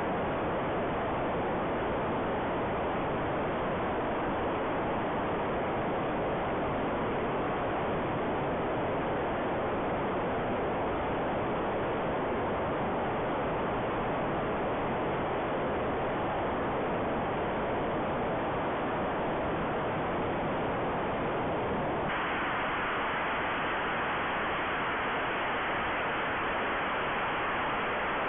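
Steady rushing wind noise on the microphone of an onboard camera carried by an RC airplane in flight, with no distinct motor tone. About 22 seconds in, the noise turns brighter and thinner.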